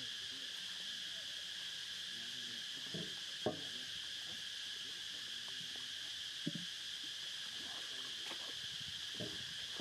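Steady high-pitched insect drone, a constant whine at two pitches. A few brief soft thumps stand out over it, the sharpest about three and a half seconds in and again about six and a half seconds in.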